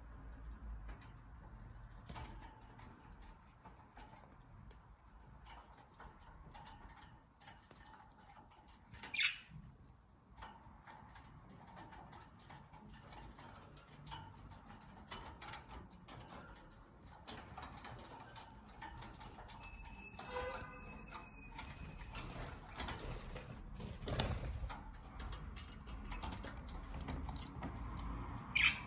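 Pet budgerigar moving about with many small clicks and scuffles, giving a sharp rising chirp about nine seconds in, a short held call around twenty seconds in, and another sharp chirp near the end.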